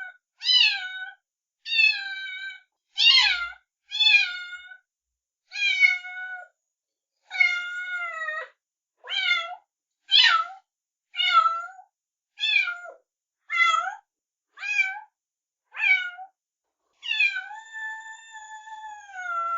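Kitten meowing over and over: high-pitched meows about one a second, each falling in pitch, with short silent gaps between them. Near the end comes one long, drawn-out meow.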